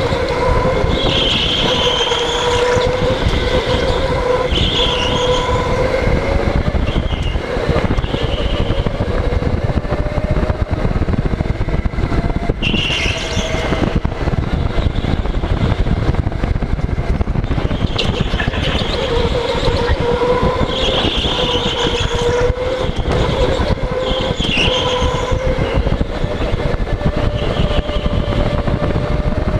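Go-kart running hard around an indoor track: a motor whine that rises and falls with speed over a heavy, steady rumble of wind and vibration on the helmet-mounted camera.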